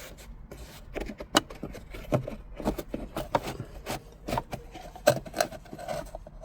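Dashcam power cable being pushed by hand into a gap in plastic car interior trim: irregular rubbing and scraping with many sharp little clicks and knocks.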